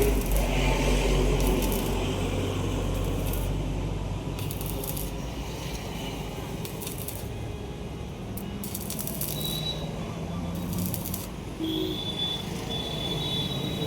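Arc welding in short runs: the arc's hissing crackle comes in repeated bursts of up to a second each, over a steady low workshop hum. A thin high steady tone joins near the end.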